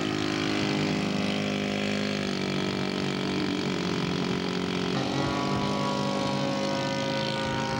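Radio-controlled model airplane engine running steadily with a buzzing pitched note that steps slightly in pitch about two and five seconds in.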